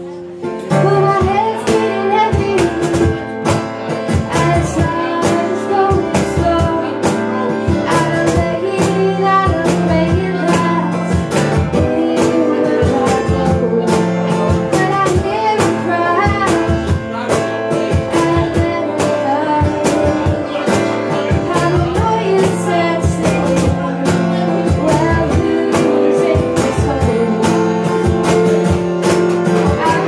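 A woman singing a song while strumming an acoustic guitar, with steady rhythmic strums under her sung melody. The guitar comes in about half a second in.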